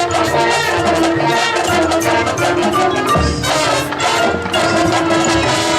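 Marching band playing a field show: sustained brass chords over a steady beat of percussion, with mallet instruments.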